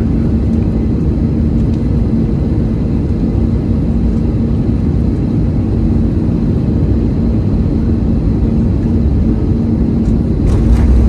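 Airbus A321neo passenger-cabin noise during the descent: a steady engine and airflow rumble with a constant hum. About ten and a half seconds in, a brief, louder burst of noise cuts across it.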